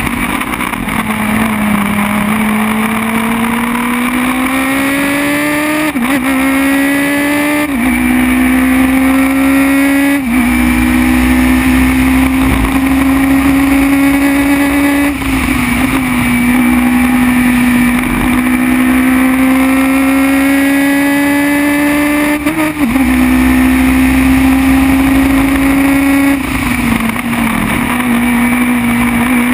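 Formula BMW single-seater's engine at full racing speed, heard onboard: the pitch climbs steadily under load and drops sharply at each gearchange, several times, over a constant rush of wind and road noise.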